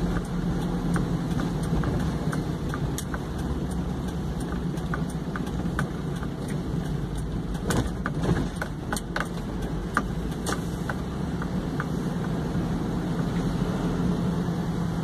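Steady engine and tyre noise heard from inside a moving vehicle's cabin on a wet road, with scattered light clicks and rattles.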